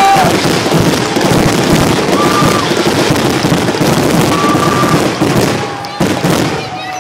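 Fireworks finale barrage: shell bursts and crackling run together into a continuous loud rumble, with short whistling tones over it now and then. It thins a little near the end.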